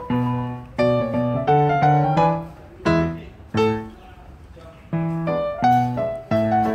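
Background piano music: struck notes and chords in a slow melody, each note fading after it is played, with a lull of about a second and a half midway.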